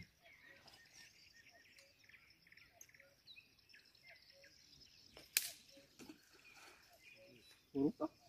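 Quiet outdoor ambience of many small birds chirping and twittering, with a faint note repeating about twice a second. One sharp click about five seconds in, and two short voice-like sounds near the end.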